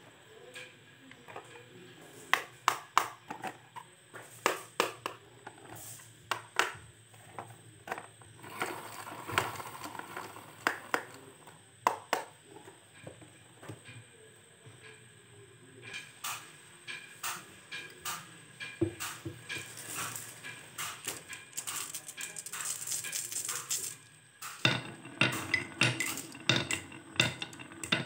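Glass marbles rolling down a wavy grooved wooden track, clacking against the wood and against each other in sharp clicks, with a steadier rolling rumble for several seconds past the middle. Near the end a handful of marbles let go onto the track sets off a dense run of clicks.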